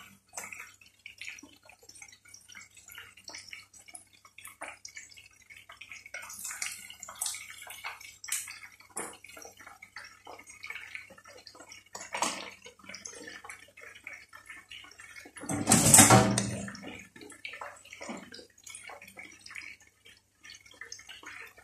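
Chicken pieces deep-frying in a pot of hot oil, the oil crackling and popping steadily. A brief loud noise lasting about a second cuts through about sixteen seconds in.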